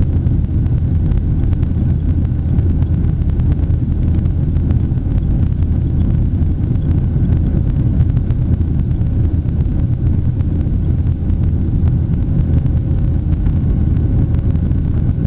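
Steady, even cabin rumble of a Boeing 737 jetliner's engines and rushing air during takeoff power, heard from inside the passenger cabin.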